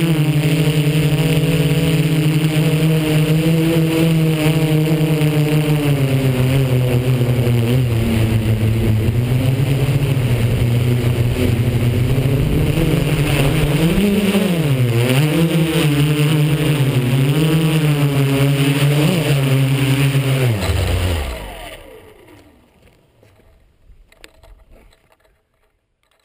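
MikroKopter multicopter's electric motors and propellers whining steadily in flight, the pitch wavering up and down as throttle changes. About 21 seconds in the pitch falls as the motors spin down and stop, followed by a few faint knocks.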